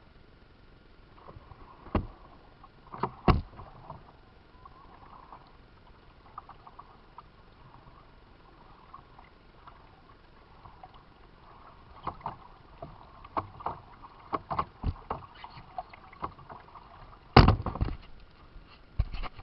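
Kayak being paddled: water splashing with scattered sharp knocks, in clusters, the loudest one near the end.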